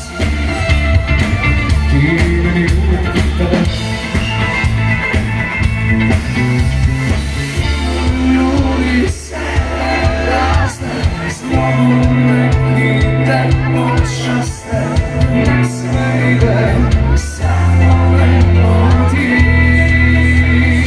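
Live band music played loud through a concert PA: electric guitar, bass guitar, drums and keyboards, with a vocal line over a steady heavy bass.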